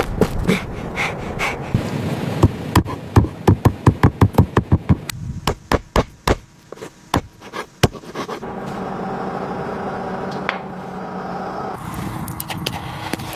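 A quick run of hard knocks, about four or five a second, that thins out to a few scattered louder blows. After that a steady hum with a few held tones takes over.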